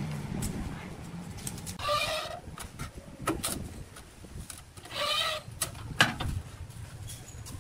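An animal calls twice, about three seconds apart, each call short and pitched. Light clicks and knocks come in between as a straightedge is handled on a granite slab, the sharpest about six seconds in.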